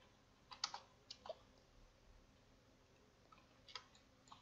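Near silence broken by a few faint, scattered computer mouse clicks, about half a second in, again around a second later, and near the end.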